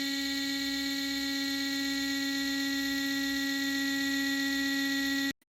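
A steady electric buzz at one unchanging pitch, rich in overtones, which starts abruptly and cuts off suddenly near the end.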